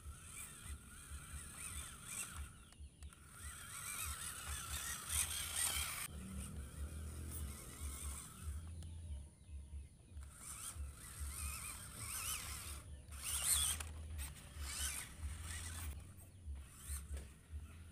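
Small electric motor and geartrain of a WPL C24 RC crawler truck whining in uneven surges as it crawls over wet dirt, loudest around five and thirteen seconds in, over a low choppy rumble.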